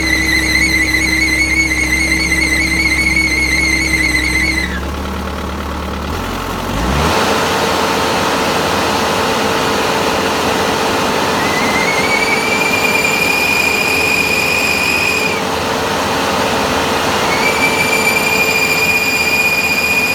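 Hydraulic final drive squealing in a high pitch with machine noise underneath. The squeal comes from the drive's brakes dragging because they are not fully releasing, which is caused by a weak charge pump. The squeal stops about 5 seconds in, comes back about 12 seconds in for a few seconds, and returns again about 17 seconds in, each time rising briefly in pitch as it starts.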